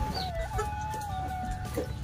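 Domestic chickens clucking in the background, over a steady held music note that steps slightly lower in pitch.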